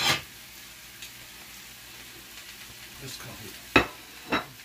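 A skillet of spinach, onions and peppers sautéing, a soft steady sizzle. A clatter comes right at the start, and two sharp knocks near the end, about half a second apart, the first the loudest sound here.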